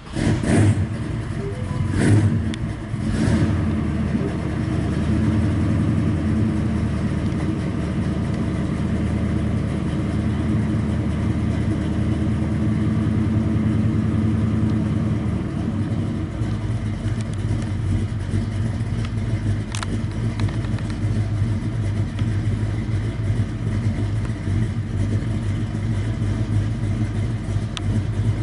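Boeing 777-300ER's GE90 jet engines in flight, a steady low rumbling roar. A few brief thumps come in the first few seconds.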